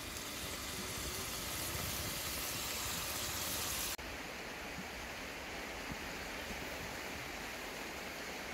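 Steady sizzling hiss of catfish pieces frying in a wok over a wood fire. About four seconds in it cuts off abruptly to a quieter, steady hiss.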